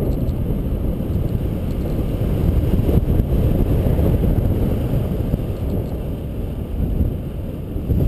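Wind rushing over the microphone of a camera on a paraglider in flight, a steady low rumble.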